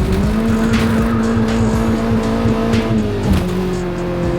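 Honda Civic's engine pulling hard at high, steady revs on a fast start, the pitch dropping about three seconds in. Music plays along.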